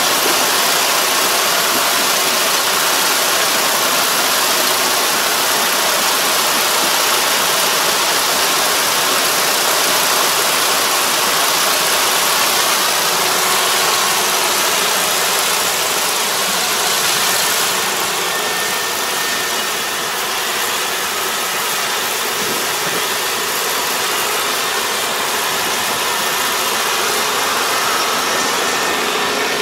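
Rice combine harvester running steadily as it cuts, its engine and threshing machinery a continuous mechanical drone under a strong steady hiss.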